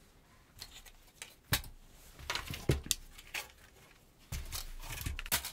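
Scattered clicks and light knocks of salvaged electronic parts and circuit boards being handled on a workbench, with a louder spell of handling noise near the end.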